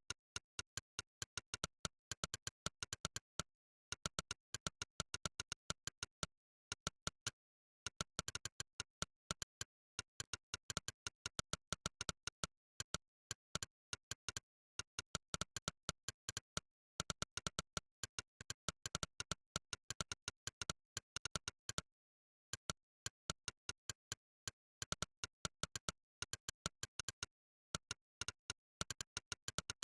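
Monkeytype's 'click' typing sound effect: a sharp synthetic click for each keystroke, coming in fast runs of several clicks a second with short pauses between the runs.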